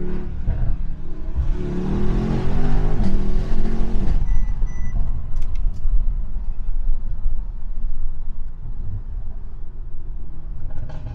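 Twin-turbo V8 car engine under hard acceleration, rising in pitch from about two to four seconds in, then running on more steadily with road noise. There are two short electronic beeps about four seconds in.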